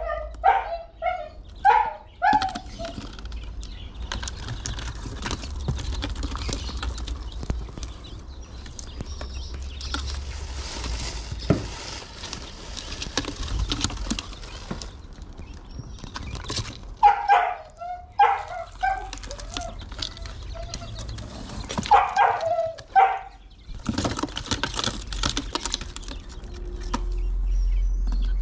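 A dog yipping and barking in several short bouts, with rustling in between.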